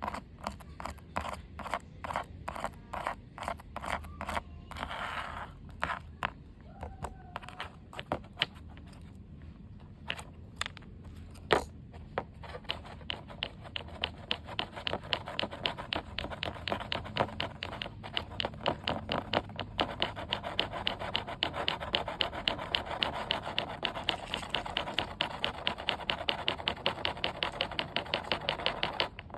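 A handmade paper fidget board being clicked and scraped by hand: scattered clicks and a brief scrape at first, then a fast, regular clicking at about three a second through the second half.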